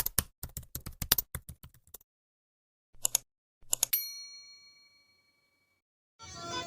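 Rapid typing clicks, about six a second for two seconds, then two short bursts of keystrokes and a single bright ding that rings on and fades over more than a second, like a typewriter-and-bell sound effect.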